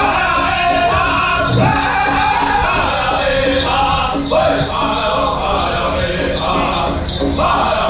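Powwow drum group singing a chicken dance song in loud, high-pitched chorus over a big hand drum.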